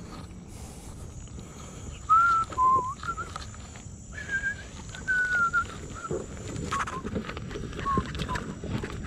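A string of short whistled notes at changing pitches, each about half a second long, over low scuffing footsteps and light knocks on stone.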